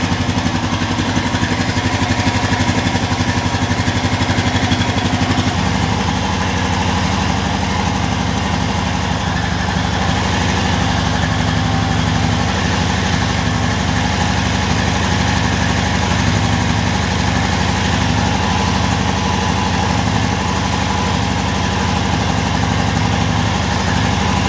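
2021 Honda Rubicon 520 DCT ATV's single-cylinder engine idling steadily, freshly started after an oil change.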